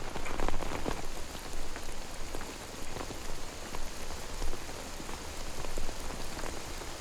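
Steady rain falling, an even patter of drops.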